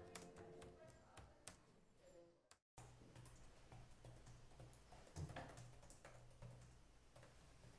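Faint typing on a laptop keyboard: irregular soft key clicks over a low steady hum. Before it, music fades out and cuts off about two and a half seconds in.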